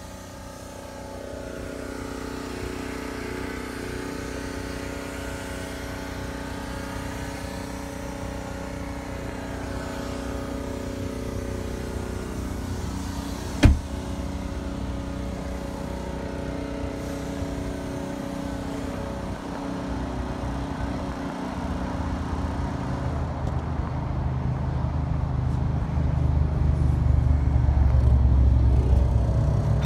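2015 Volkswagen Golf TDI's 2.0-litre four-cylinder turbodiesel idling steadily, with a single sharp slam of a car door about halfway through. The low rumble grows louder near the end, at the back of the car.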